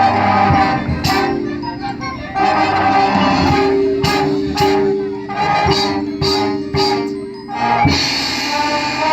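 High school marching band playing: brass holding loud chords over percussion accents that land every half second or so, then a cymbal crash near the end as the full band comes back in.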